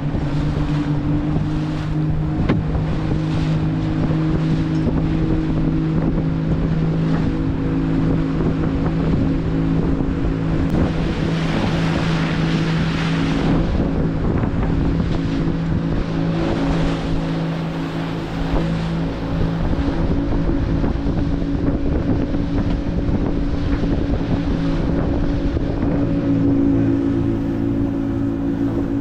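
Motorboat engine running steadily at cruising speed, with wind on the microphone and water rushing past the hull; a stronger gust of wind noise comes partway through.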